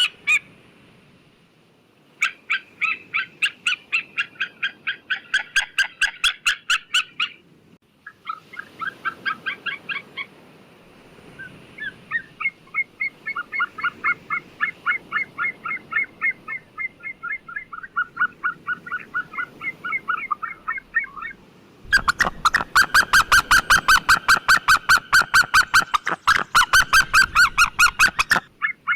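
White-tailed eagle calling: bouts of rapid, repeated yelping notes, several a second, with short pauses between the bouts. The last bout, starting about two-thirds of the way in, is the loudest.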